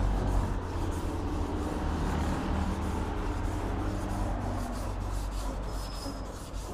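Hand sanding of primer surfacer on a car's steel door panel with sandpaper wrapped around a flat wooden sanding block: continuous back-and-forth rubbing strokes, working out sanding marks in the primer.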